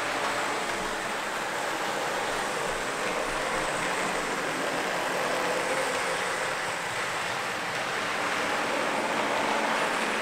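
H0 scale model train, a locomotive hauling double-deck coaches, running steadily over the layout's track: the wheels roll and click on the rails over a faint motor hum.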